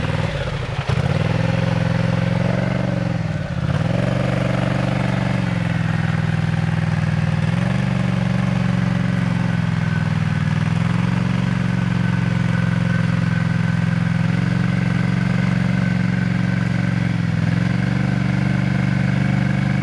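Garden tractor engine running steadily at high throttle, its pitch dipping briefly several times as it takes load, most deeply about three and a half seconds in.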